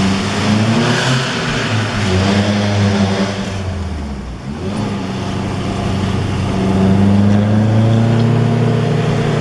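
Car engine running under load, easing off about four seconds in, then building up again.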